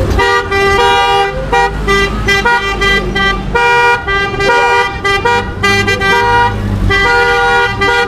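A vehicle horn hooting over and over in a long run of short blasts, each about half a second to a second long, over the low rumble of traffic.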